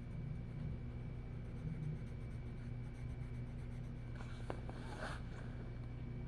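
Colouring on paper: a colouring utensil scratching and rubbing in short strokes, louder for a second or so about two-thirds of the way in, over a steady low hum.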